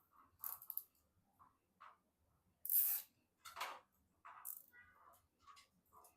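Computer parts being handled during assembly: a scatter of small clicks, taps and rustles, with one louder, hissing scrape about three seconds in.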